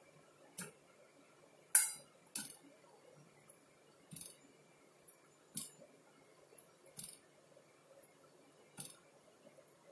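Light metallic clinks against a stainless steel bowl as pieces of soft dough are pinched off over it: about seven short, sharp taps at irregular gaps of one to two seconds, the loudest near two seconds in.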